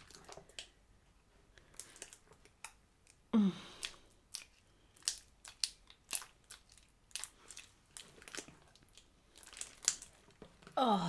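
Slime being kneaded and stretched by hand, making irregular wet clicks, squelches and pops. About three and a half seconds in there is one short vocal sound that falls in pitch.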